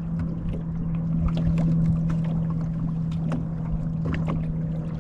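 Boat drifting in a stiff wind: a steady hum from the electric trolling motor, wind rumbling on the microphone, and scattered small clicks and knocks.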